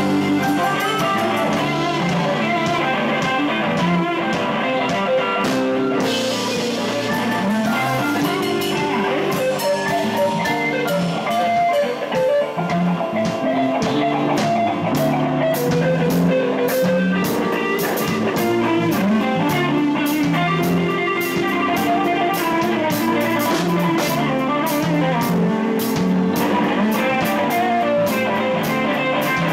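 Live band playing an instrumental passage: electric guitar over a drum kit, with cymbals ticking steadily from about eight seconds in.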